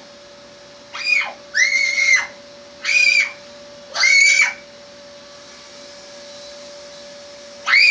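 A series of short, high-pitched squeals, each under a second: four in quick succession, then a pause and another near the end. A steady hum runs underneath.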